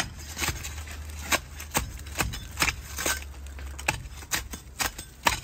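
Dry ivy stems snapping and crackling as dried growth is pulled away by hand: irregular sharp clicks, about two a second, over a low hum that stops about four seconds in.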